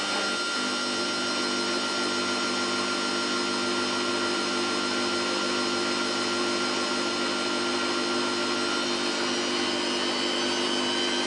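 Samsung WF8804RPA front-loading washing machine spinning its drum at a steady speed during the intermediate spin of about 450 rpm after the prewash, the motor giving a steady whine. A faint higher whine rises slightly near the end.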